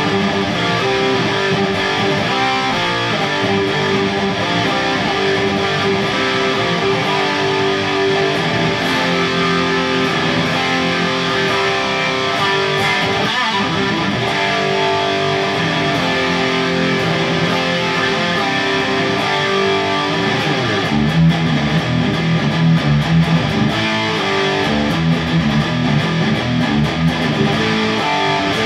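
Kramer Pacer electric guitar playing a rock riff, overdriven by a Boss SD-1 pedal and run through two amps at once, a Peavey Windsor and a Peavey Ultra Plus power amp, with no chorus on. About three-quarters of the way through, the riff moves down to lower notes.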